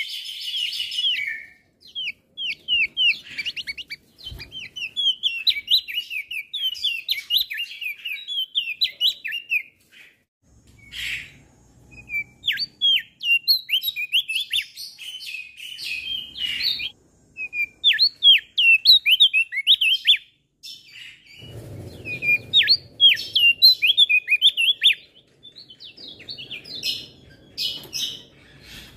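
Male opior jambul singing a rapid, varied run of high twittering chirps, with brief pauses between phrases. A faint low rumble sits underneath at times.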